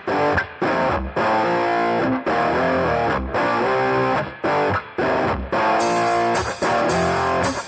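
Intro music led by guitar, broken by short gaps about once a second.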